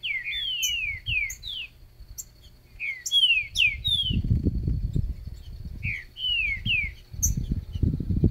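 A trinca-ferro (green-winged saltator) singing three short phrases of loud, quick whistled notes, each sliding downward. Low rumbling noise on the microphone comes in twice, in the middle and near the end.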